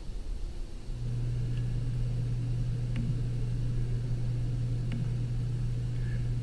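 A steady low hum starts about a second in and holds, with a couple of faint clicks over it.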